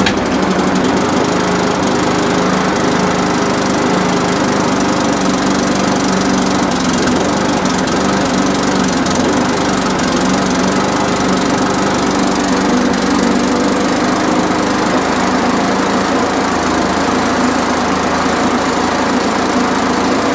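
Briggs & Stratton single-cylinder engine on a push lawn mower, running at a fairly even speed after being primed and pull-started. It runs, but not right: the owner puts this mainly down to a misplaced throttle-linkage spring and suspects a dirty carburettor.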